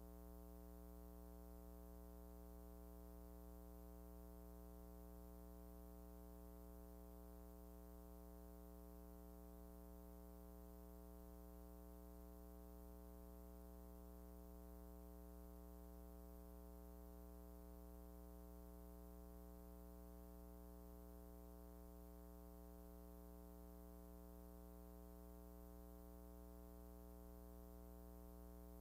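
Near silence apart from a faint, steady low hum with a buzz of even overtones that never changes.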